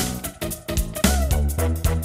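A music track playing back through a mastering EQ, with a heavy bass line, regular drum hits and a short falling guitar-like note about a second in.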